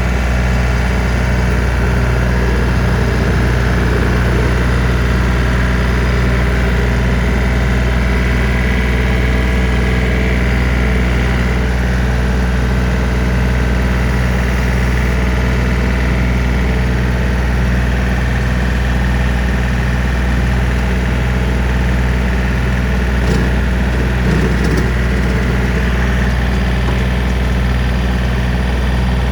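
John Deere 3025D compact tractor's three-cylinder diesel running steadily while pulling a rotary brush cutter in low gear. A few light clicks come about two-thirds of the way through.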